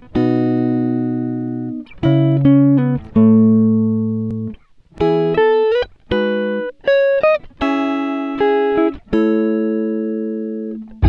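Background music: clean, plucked guitar-like chords and short note runs, each left ringing and slowly fading before the next is played.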